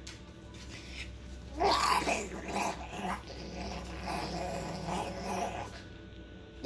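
Growling, animal-like vocal noises: a loud rising-and-falling growl about a second and a half in, then a string of shorter growls that fade toward the end.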